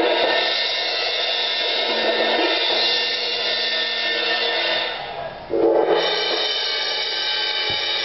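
Paiste 602 18-inch medium cymbal ringing after a hard strike. It is struck again about five and a half seconds in and rings on with steady overtones.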